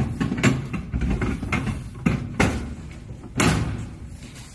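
Direct-push goods tray being slid back into a vending machine's cabinet, with sliding and rubbing sounds and several sharp knocks as it goes into place.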